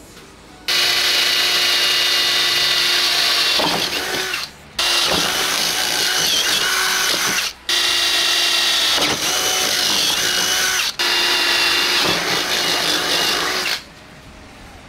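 Cordless drill running at speed, boring holes through a trim strip: four runs of about three seconds each, starting and stopping abruptly with short pauses between.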